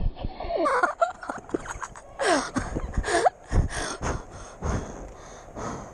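Wind buffeting the microphone of a moving camera as it rolls down concrete, mixed with the rolling of skateboard wheels. A few short calls slide down and up in pitch about a second in and again around two to three seconds in.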